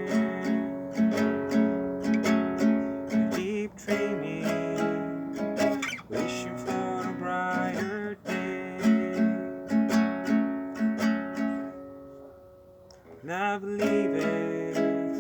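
Acoustic guitar music, strummed and plucked notes ringing in a steady pattern. It drops away briefly about three-quarters of the way through, then comes back in.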